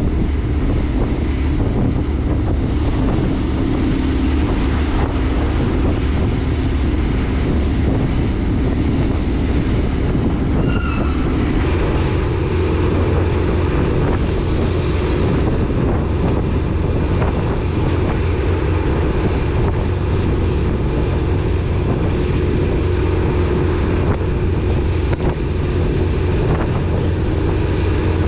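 Steady low rumble and hum of a ro-ro ferry's engines running while it lies at the linkspan, with wind buffeting the microphone.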